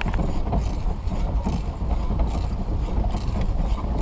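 Pedal-driven paddle boat's crank and paddle-wheel drive running with a steady mechanical clatter, over a continuous low rumble.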